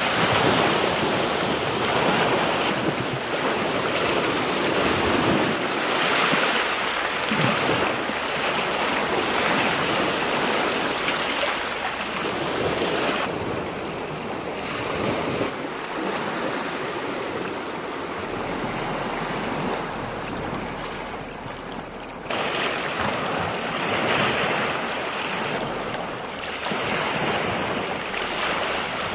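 Small sea waves lapping and breaking on a shingle beach and against shore rocks, the wash rising and ebbing every couple of seconds. A gentler, quieter stretch of wash comes in the middle.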